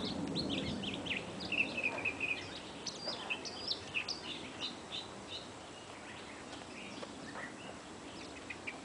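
Several small birds chirping and calling over one another with quick, high notes, busiest in the first few seconds and thinning to scattered chirps after.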